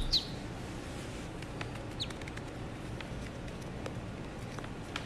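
Ducklings peeping: a few short, high, falling peeps, the loudest right at the start and another about two seconds in, over a low steady background hum.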